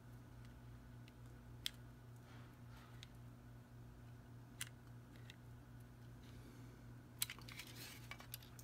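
Cutaway Glock 19 pistol being handled. Its parts give sharp metallic clicks: single clicks a few seconds apart, then a quick cluster of clicks and light rattling near the end, with faint sliding scrapes in between.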